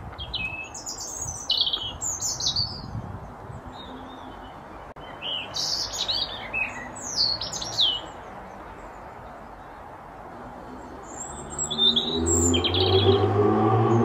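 European robin singing: three short phrases of high, thin, quickly changing warbling notes with pauses between them. Near the end a low drone with several steady tones comes up and becomes the loudest sound.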